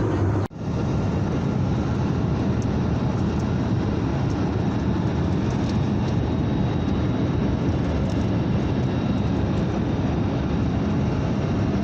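Steady jet engine and airflow noise heard inside the cabin of an Airbus A321neo in flight. The noise drops out briefly about half a second in, then carries on unchanged.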